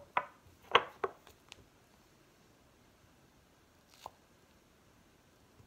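A few short, soft handling sounds in the first second and a half, then one faint tap about four seconds in, as a shaving brush, a handful of lather and a small glass soap dish are handled; otherwise low room tone.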